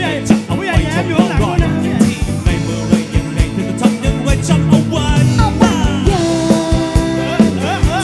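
Live band playing a Thai pop-rap song on drum kit, bass, electric and acoustic guitars, with sung vocals; one sung note is held for over a second near the end.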